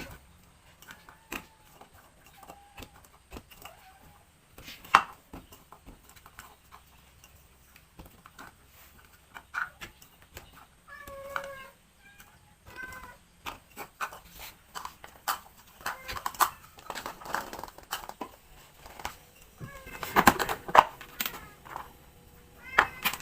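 A domestic cat meowing several times in short calls, amid scattered sharp clicks and knocks that grow busier in the second half.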